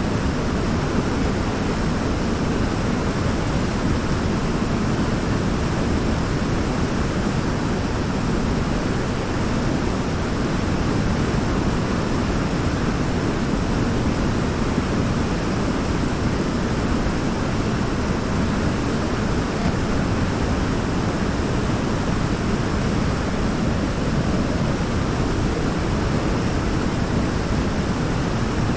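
River water pouring over a large rock in a waterfall: a steady, deep rushing roar that does not change.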